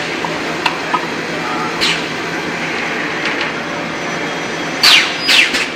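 EPS foam cup making machine line running with a steady mechanical din and a few sharp clicks, then two short hissing bursts that fall in pitch near the end.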